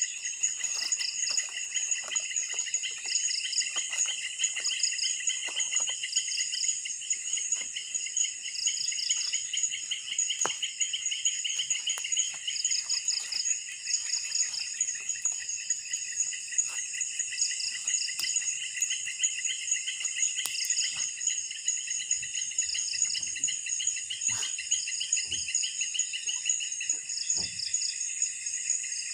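Dense night-time forest insect chorus: several overlapping high trills, some steady and some pulsing in quick repeated bursts. Beneath it, scattered faint crackles and snaps from a campfire being built up with wood.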